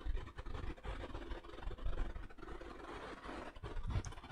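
Faint room tone with a low rumble and a few soft taps and rubs from a pen working on an interactive whiteboard.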